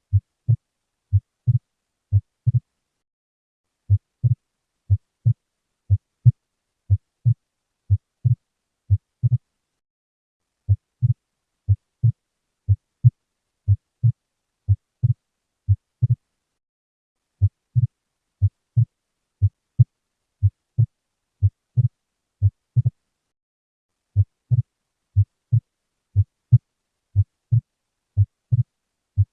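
Recorded heart sounds: a steady lub-dub, paired low thumps about once a second, looping with a short pause every seven seconds or so. Played as the auscultation example of wide S2 splitting in a ventricular septal defect.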